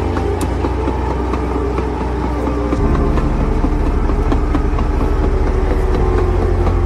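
Cartoon bulldozer's engine sound effect: a loud, low rumble of an idling engine. About three seconds in it turns to a faster, even chugging.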